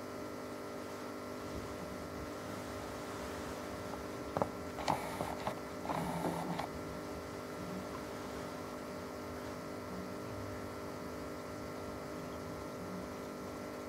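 Steady hum of running aquarium equipment, several fixed tones under a faint hiss. A few knocks and a brief rustle come about four to six seconds in.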